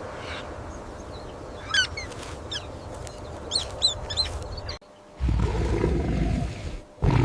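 Meerkats giving a few short, high chirping calls over a steady background hiss. About five seconds in, the sound cuts off abruptly and is followed by two low rumbling animal sounds.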